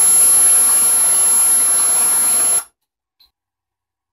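Samsung LN37A550P3F LCD TV's speakers putting out a loud screeching hiss with several steady whistling tones, which cuts off abruptly about two and a half seconds in. This is the garbled audio of the A550 series' startup cycling fault, which the owner traced to a high-ESR 47 µF tantalum capacitor on the main board.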